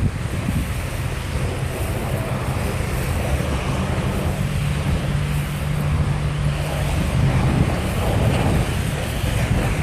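Wind rumbling on the microphone during a snowstorm, with a vehicle engine's steady low hum from about a second in until about seven seconds in.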